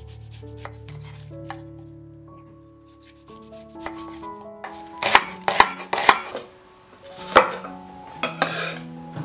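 Large kitchen knife chopping an onion on a wooden chopping board: a quick run of sharp knocks about halfway through, another single knock and a short scrape near the end, over soft background music.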